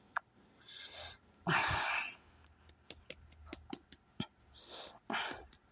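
A person breathing into a close microphone during a pause, with one strong breath about one and a half seconds in and fainter ones near the end, and a scatter of small clicks in between.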